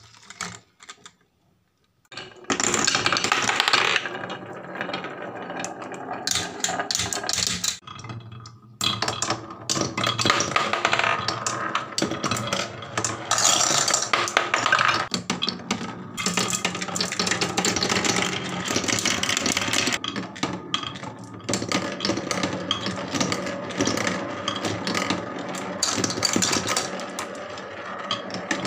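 Marbles rolling and clattering along wooden marble-run tracks, including one circling a carved wooden funnel bowl. It starts after about two seconds of near silence, and eases off briefly around eight seconds in.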